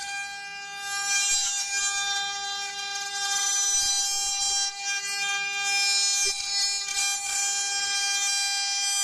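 Spindle motor of a four-axis rotary CNC router running as a steady high whine while it carves, with a cutting hiss that swells and fades as the tool works.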